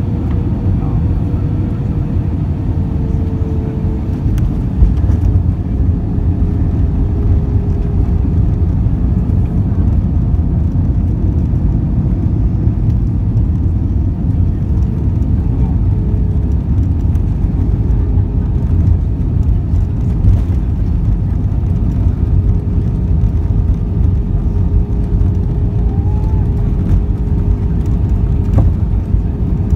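Airbus A320-200 passenger-cabin noise: a steady, loud rumble of jet engines and airflow, with a steady engine tone that wavers slightly in pitch.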